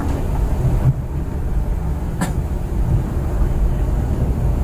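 Scania coach under way: steady low rumble of engine and road noise heard from inside the bus, with a single sharp knock about two seconds in.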